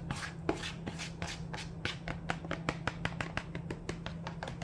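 A spatula scraping and knocking against the inside of a plastic bowl, scraping out pasta sauce in a quick, irregular run of clicks, about six a second.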